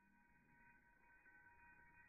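Near silence with a faint steady high-pitched hum.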